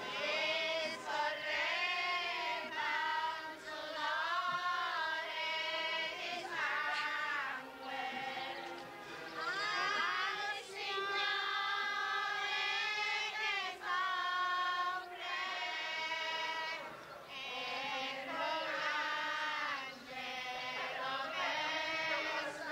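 A group of voices, mostly high women's voices, singing a religious chant together in long, slow, held phrases with brief pauses for breath.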